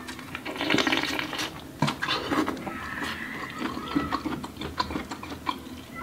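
Close-up eating sounds: wet chewing and lip-smacking on buttery corn on the cob, with irregular small clicks as fingers pick through food in a glass dish.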